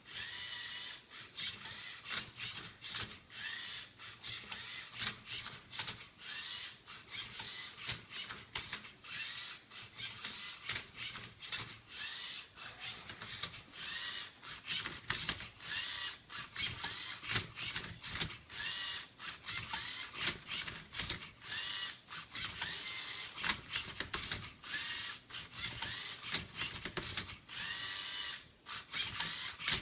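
A Lego Mindstorms EV3 MindCub3r robot solving a Rubik's Cube. Its motors whir in quick successive spurts that rise and fall in pitch as the turntable spins and the arm tips the cube, with plastic clicking and clattering between them.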